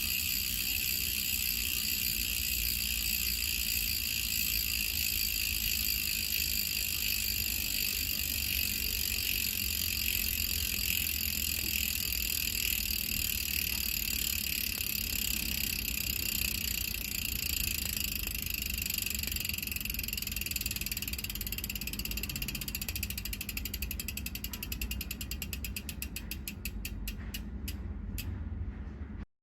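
Bicycle rear freehub clicking as the wheel coasts, a fast dense buzz of pawl clicks. In the last few seconds the clicks slow until each one is heard separately, then they stop as the wheel comes to rest.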